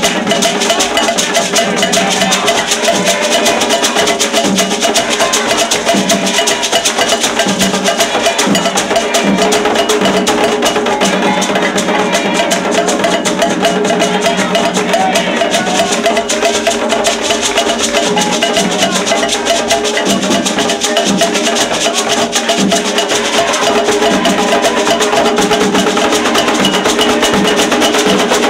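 Candomblé ceremonial drumming: atabaque hand drums and a ringing agogô bell playing a fast, unbroken rhythm for the orixá Xangô.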